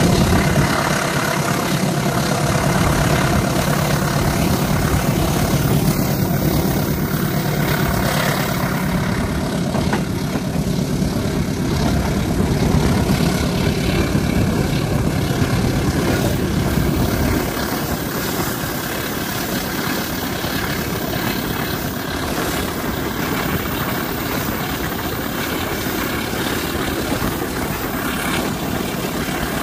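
Diesel-electric locomotive CC203 0203 running hard under load, a steady heavy engine drone. A little over halfway through, the deep engine note drops away and the sound becomes slightly quieter.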